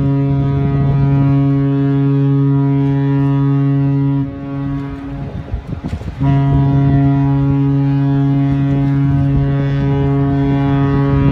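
Disney cruise ship's deep, steady horn sounding two long blasts: the first ends about four seconds in with a brief echoing tail, and the second starts about six seconds in and is held to the end.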